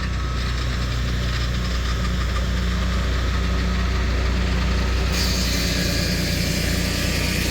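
Portable sawmill's engine running steadily at working speed. About five seconds in, a higher hiss joins it.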